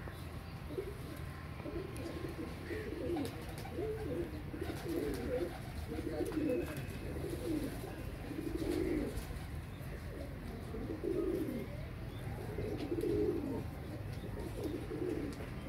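Domestic pigeons cooing: low, pulsing coos repeated about once a second or so, over a steady low background rumble.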